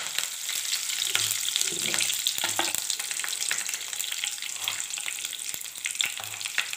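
Curry leaves frying in hot coconut oil: a steady sizzle with many small crackles and pops.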